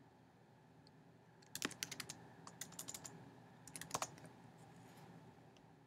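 Laptop keyboard keys clicking in three short runs of typing, with near silence around them.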